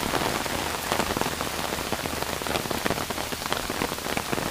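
Heavy tropical-storm rain falling steadily, a dense stream of individual drop hits over a continuous hiss.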